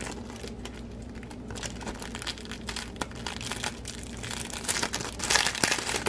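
Thin clear plastic sleeve crinkling and crackling as a mesh filter disc is worked out of it by hand, louder about five seconds in.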